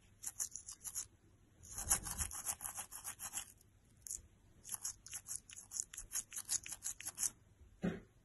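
Toothbrush bristles scrubbing a German Shepherd's teeth in rapid back-and-forth strokes, several a second, in three runs with short pauses between. A short, low thump comes near the end.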